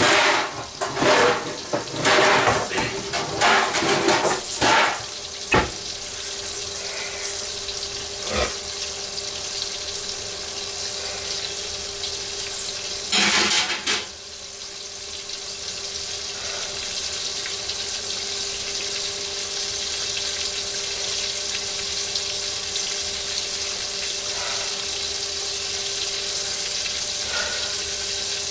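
Pork chops frying in hot grease in a pan: a steady sizzle that builds gradually. In the first several seconds there is clattering with a couple of sharp knocks, and about halfway through a brief louder rush of noise.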